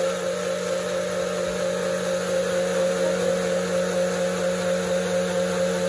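Countertop blender motor running at a steady pitch, blending mint leaves, lemon juice and water into a smooth liquid.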